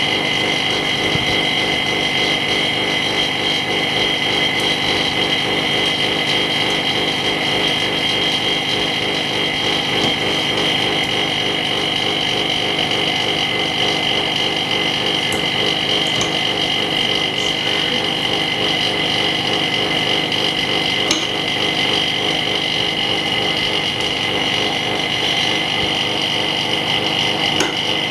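Steady running hum of an LCD separator machine's vacuum pump, with a high, even whine on top that does not change.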